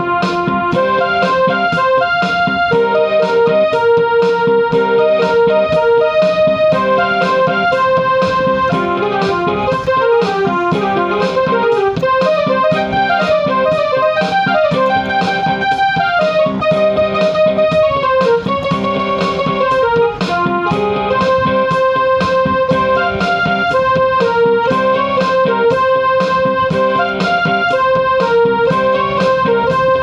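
Background music: a keyboard melody of quickly struck notes at a steady level.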